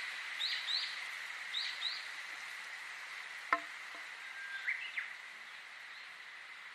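Outdoor nature ambience: a steady, high insect drone, with songbird chirps in the first two seconds, a sharp click about three and a half seconds in, and a short rising whistled note about five seconds in.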